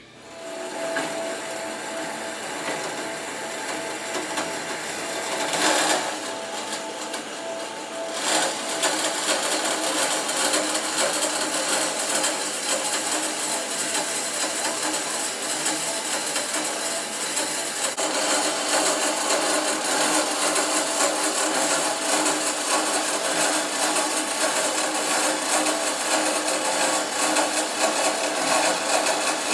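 Horizontal metal-cutting band saw running steadily, its blade cutting through square steel tubing. There are two brief louder surges about six and eight seconds in.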